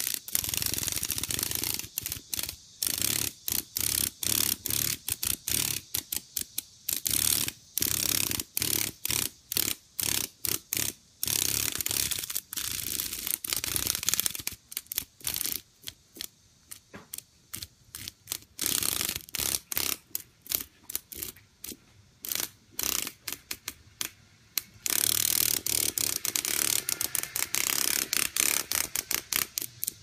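Cicada giving its harsh rattling distress buzz while held by a katydid. The buzz comes in irregular bursts, some brief and some lasting a few seconds, with the longest near the end.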